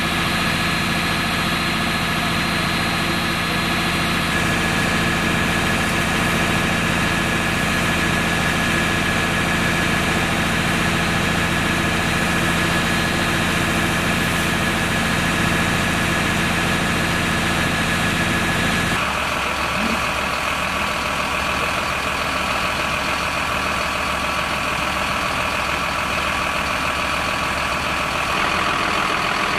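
Diesel engine of a Mercedes-Benz fire engine idling steadily. About two-thirds of the way through, the sound changes abruptly: the low rumble drops away and a different engine's running takes over.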